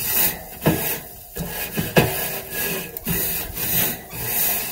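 Grill brush scrubbing back and forth across the metal wire cooking grate of a charcoal kettle grill, a rasping scrape about twice a second, as the grate is cleaned over hot coals.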